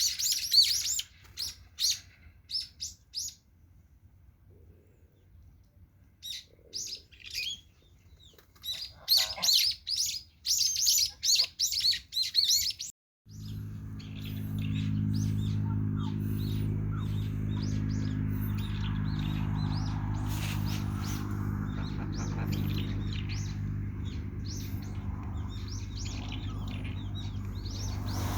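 Small birds chirping in quick runs of short, high notes, with pauses between the runs. After an abrupt cut about thirteen seconds in, a steady low hum takes over, with faint chirps still above it.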